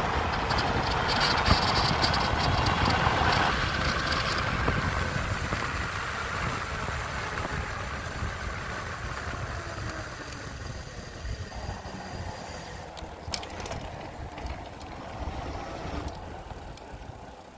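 Philodo Forester's motor running with a whine and rattle that steps down in pitch early on and then slowly fades, as if winding down, with a few sharp clicks near the end. This is the motor noise that the owner calls bad, at 300 miles of use.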